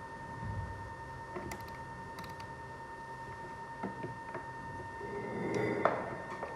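Scattered light clicks and clatter of objects being handled, over a steady high-pitched electrical whine. The clatter builds a little near the end, with one sharp click.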